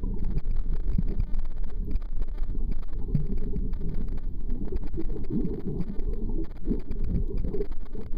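Muffled underwater noise picked up through a camera's waterproof housing: a steady low rumble with short wavering warbles like bubbles, more of them in the second half.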